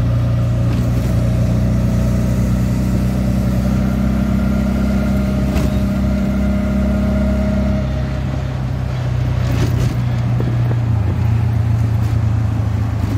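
Auto-rickshaw engine running steadily on the move, with road noise; its note drops about eight seconds in and picks up again a couple of seconds later.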